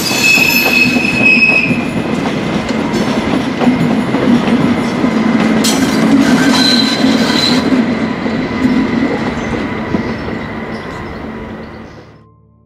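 ICE 1 (class 401) high-speed train rumbling over switches and curved track, with wheel squeal from the flanges climbing the outer rail in the curves and clicks as wheels cross the switches. The squeal comes in high tones near the start and again about halfway through, and the whole sound fades out near the end.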